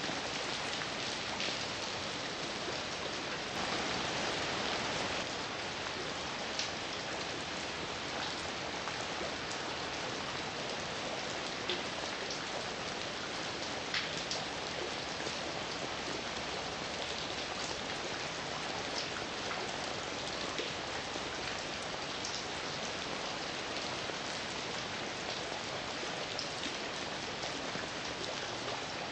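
Steady heavy rain falling on a surface, with individual drops ticking sharply now and then over the even hiss.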